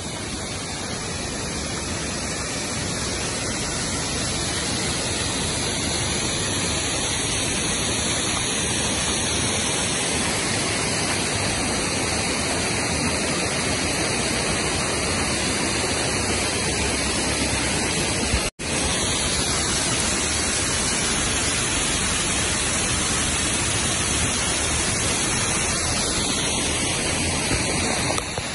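Steady rush of water from a rain-swollen river and a roadside waterfall, a dense hiss that cuts out for an instant about two-thirds of the way through.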